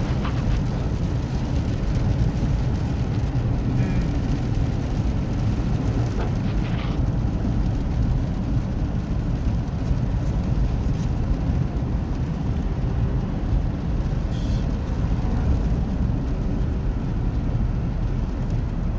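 Steady low rumble of a car driving on a wet freeway, heard from inside the cabin: engine and tyre noise on the rain-soaked road.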